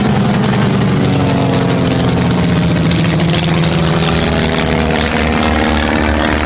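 SIAI-Marchetti SF.260 propeller aircraft flying by with its engine running, the pitch slowly falling as it passes.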